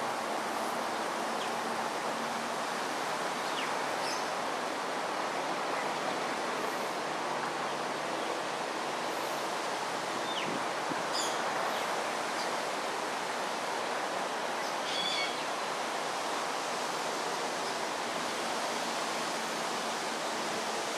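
Steady rushing outdoor noise, with a few short, faint bird chirps scattered through it, about four seconds, ten to eleven seconds and fifteen seconds in.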